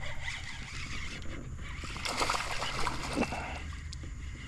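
Creek water splashing and sloshing over a steady hiss of moving water, with a short run of louder splashes about two seconds in.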